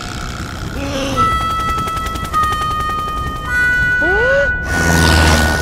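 Cartoon soundtrack: held musical notes over a fast, even rattle of clicks, a short rising vocal-like glide about four seconds in, then a louder noisy burst near the end.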